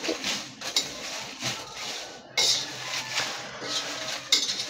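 Spatula scraping and stirring dry bay leaves and stone flower around a kadhai as they roast in a little oil: irregular scrapes and rustles every half second or so.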